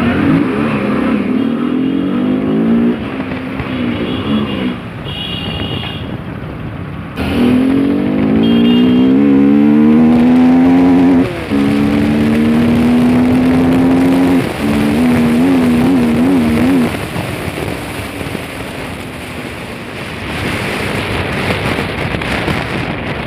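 Modified Bajaj Pulsar RS200's single-cylinder engine accelerating hard, its pitch climbing through the gears with short breaks at each shift. The revs then waver briefly on the throttle and drop off to wind and road noise, picking up again near the end.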